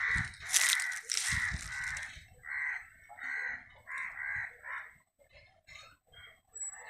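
A bird giving a string of short, harsh calls, several a second, which die away about five seconds in.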